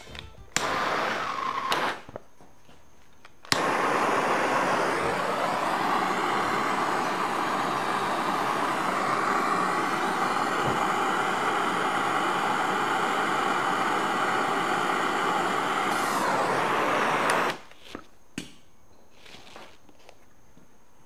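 Handheld gas torch burning with a steady hiss for about fourteen seconds, heating a seized generator pulley held in a puller so it can be freed. It starts abruptly and cuts off, after a shorter burst of the same about a second in.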